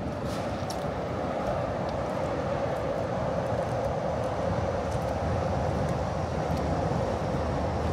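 A steady rushing rumble of passing vehicles that slowly grows louder, with a few faint clicks.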